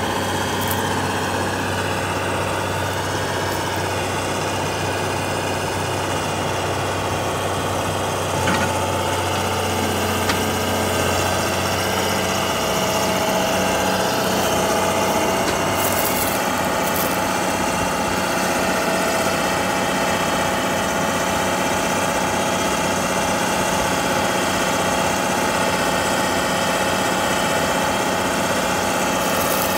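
Crawler excavator's diesel engine running steadily with an even hum, and a short knock about eight seconds in.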